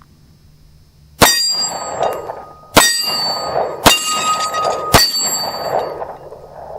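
Four shots from a Kel-Tec P11 9mm pistol, about a second or a second and a half apart, each followed by a ringing clang and an echo that fades away.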